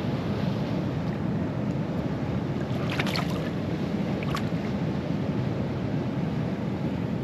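Steady rushing noise of wind on the microphone and moving water, with a few brief sharp sounds about three seconds in and again a little after four seconds, while a small asp is being played and brought in on a spinning rod.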